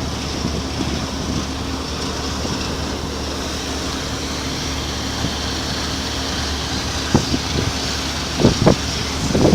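Steady drone of a ship's engine with wind noise, a low hum and a faint steady tone running throughout. A few short knocks come near the end.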